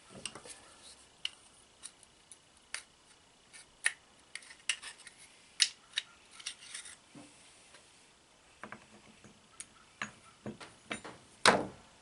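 Small metal parts of a throttle-body injection unit clicking and clinking as they are handled and set down on a bench, in irregular single clicks, with one louder knock near the end.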